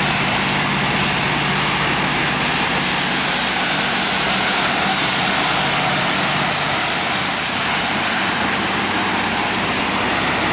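Dive boat under way: a steady engine drone under a loud, even rush of noise.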